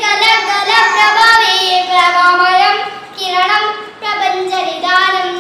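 A young boy singing solo without accompaniment, holding long notes that bend and glide in pitch, with two brief pauses about three and four seconds in.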